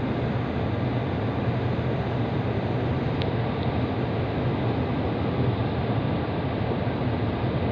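Steady low hum and even noise inside a Kawasaki–CRRC CT251 train on the Thomson-East Coast Line, with a faint click about three seconds in.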